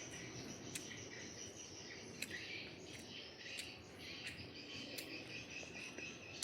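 Crickets and birds chirping steadily in the background, with short sharp crunching clicks every second or so from chewing crispy rice pancake.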